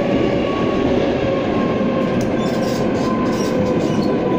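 Moscow Metro Rusich (81-740/741) train running, heard from inside the car: a loud, steady rumble of wheels and running gear, with a faint whine that slowly falls in pitch.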